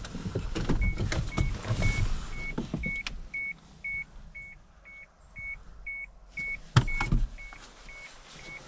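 Vehicle's door-open warning chime beeping steadily, about two short beeps a second, starting about a second in. A few bumps and a sharp knock come near the end.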